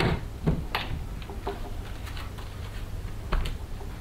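Light knocks and taps of a small plastic-framed solar panel being handled on a carpeted console: the sharpest right at the start and about three quarters of a second in, another a little after three seconds. A low steady hum lies underneath.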